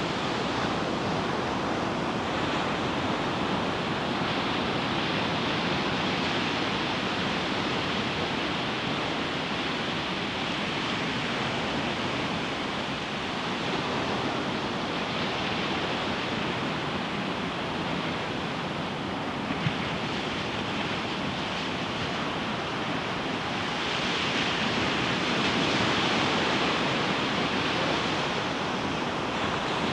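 Ocean surf washing onto a beach, a steady rushing that swells and eases as waves break, building to a louder stretch about 24 seconds in. A brief click about two-thirds of the way through.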